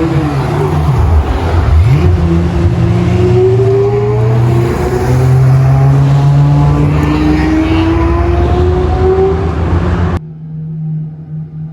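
High-performance sports car engines running hard, their pitch rising steadily as they accelerate, with a quick dip and rise in pitch about a second in. Just after ten seconds the sound cuts abruptly to a quieter, steady low engine hum.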